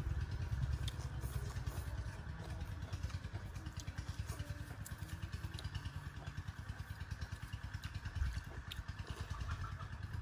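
A small engine runs steadily in the background with a low, regular throb. Faint clicks of chopsticks and spoons against ceramic bowls come over it.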